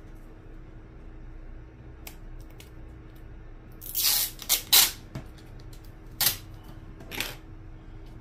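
Adhesive tape being pulled off the roll and pressed onto holes in a speaker cabinet to make the enclosure airtight: a cluster of short scratchy pulls about four seconds in, then two more single ones a little apart, over a faint steady hum.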